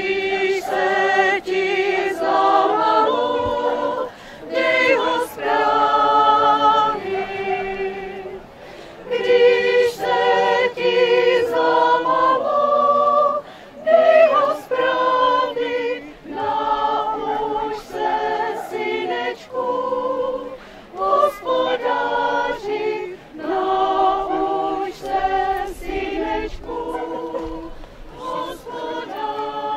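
A choir singing in phrases, with short breaks between them.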